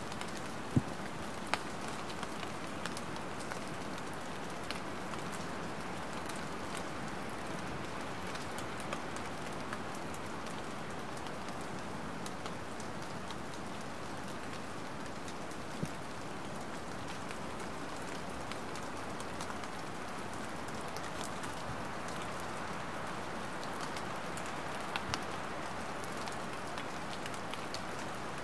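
Light rain falling steadily as an even hiss, with a few sharp ticks of single drops striking something, two of them close together about a second in and two more near the end.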